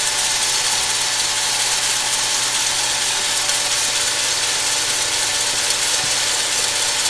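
Corretto-style coffee roaster running: a heat gun blows a steady hiss of hot air into a bread machine pan while the machine's kneading paddle churns coffee beans with a steady mechanical rattle.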